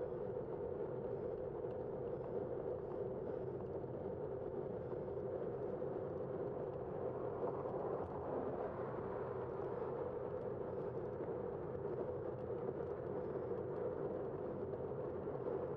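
Steady rolling noise of a bicycle ride heard from a bike-mounted camera: wind on the microphone and tyres on pavement, with a steady hum and no distinct events.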